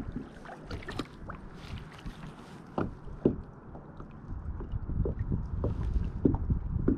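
Water and handling sounds around a fishing kayak: a low rumble with scattered light knocks and clicks, a sharper knock about three seconds in. The rumble grows stronger in the second half.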